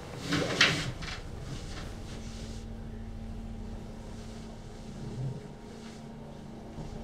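Bedding rustling as a person rolls over in bed, loudest for about a second near the start. A low steady hum comes in about two seconds in.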